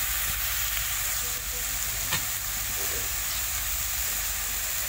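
Chicken with potato, onion and tomato sizzling steadily in a pan, cooking dry without oil or water. There is a faint tap about two seconds in.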